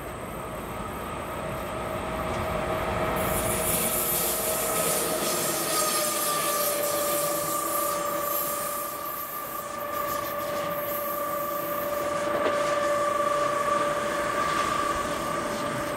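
JR Freight DE10 diesel-hydraulic locomotive running light past, its V12 diesel engine running, with a steady whine and the hiss and rumble of its wheels on the rails. The sound swells as it comes close, twice.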